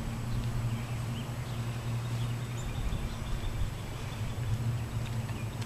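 1984 Volkswagen Scirocco 8-valve four-cylinder idling steadily through Raceland headers, a Tectonics Tuning cat-back and a Magnaflow muffler: a low, even exhaust burble.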